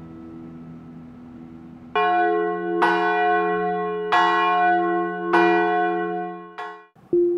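An acoustic guitar's last chord dies away. About two seconds in, a bell begins ringing: five strikes a little over a second apart, each ringing on into the next, until it cuts off near the end.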